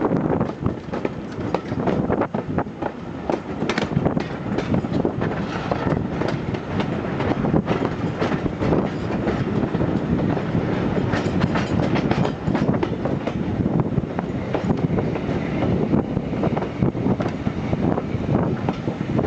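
Train hauled by A4 Pacific steam locomotive 60007 'Sir Nigel Gresley' rolling through on its arrival, with a steady rumble and wheels clicking over the rail joints, many irregular clicks throughout.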